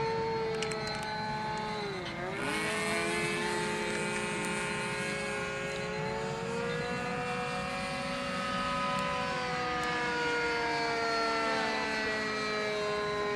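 Radio-controlled model aeroplane's motor running in flight: a steady pitched drone that dips briefly in pitch about two seconds in, then shifts up and down with the throttle.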